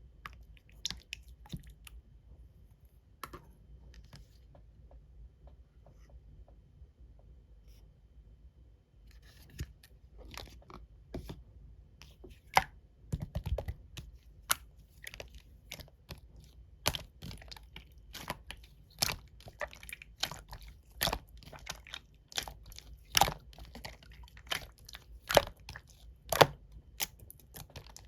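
Clear green slime being worked by hand, making sharp sticky pops and clicks: a few scattered ones at first, then a quick, steady run of them from about a third of the way in.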